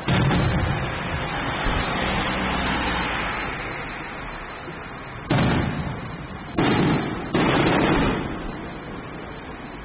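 Aerial fireworks shells bursting: a loud boom at the start that rumbles on and dies away over about four seconds, then three more sharp booms a little past halfway, each trailing off in a rolling echo.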